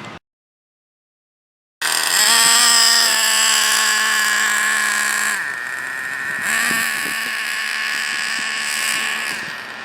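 Small two-stroke nitro engine of a Traxxas Revo 3.3 RC monster truck running at high revs, a loud high-pitched buzz that cuts in abruptly after about two seconds of silence.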